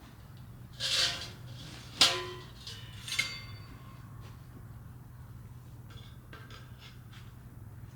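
Hard objects being handled: a short scrape, then a sharp clink with a brief ring about two seconds in and another ringing clink a second later, then a few faint taps, over a steady low hum.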